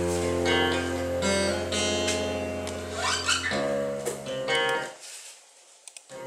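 Guitar being strummed, chords ringing out over a sustained low note, then dying away to near quiet about five seconds in before another strum near the end.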